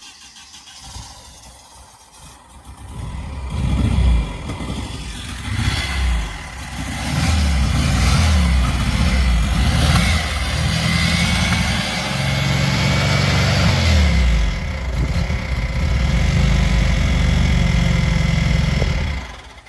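Volkswagen T2's air-cooled flat-four engine running, its speed rising and falling several times. It grows loud about three seconds in and stops abruptly just before the end.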